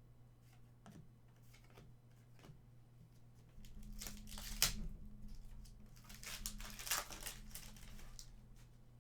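Trading-card pack wrapper being torn open and crinkled, in two spells of crackling rustle, about four seconds in and again six to seven and a half seconds in.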